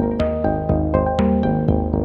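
Background music: a melody of short pitched notes over a steady beat, with a strong hit about once a second.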